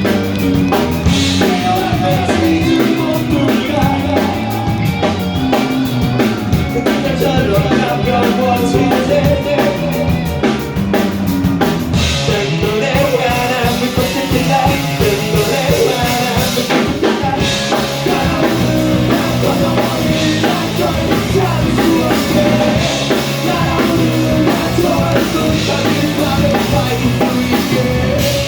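A rock band playing live, loud and continuous, with a full drum kit driving the song over electric guitars and bass.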